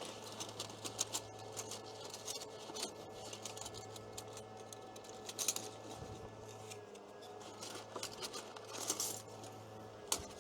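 Steady low electrical hum from a pod coffee machine running off a 1500-watt inverter, with scattered light clicks and clinks throughout. The hum drops out briefly about seven seconds in.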